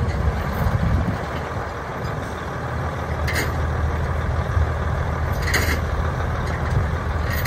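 1983 John Deere 8650's turbocharged six-cylinder diesel engine running steadily at a low, even rumble. There are two brief hisses about three and five and a half seconds in.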